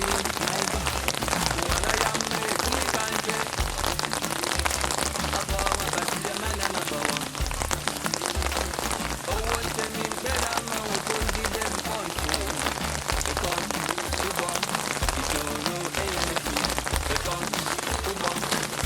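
Heavy rain falling steadily and pattering on hard surfaces, with a song playing underneath.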